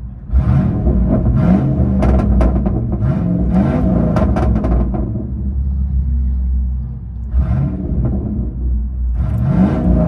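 Straight-piped 5.0L V8 of a 1996 Ford Bronco, heard from inside the cab, revved in a string of quick blips with sharp crackles and pops as the revs drop. It settles to a steady idle for a couple of seconds around the middle, then is revved again near the end.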